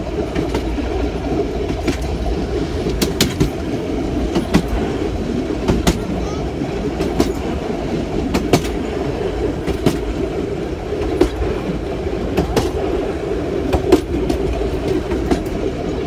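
Passenger train running along the line: a steady rumble of the carriage on the rails, with sharp wheel clicks, often in quick pairs, every second or few seconds.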